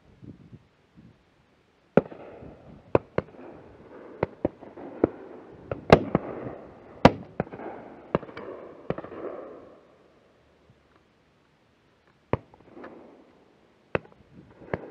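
Shotgun shots from several guns, near and distant: a rapid, uneven string of about a dozen reports over some seven seconds, the loudest about six and seven seconds in, each trailing a short echo, then two more single shots near the end.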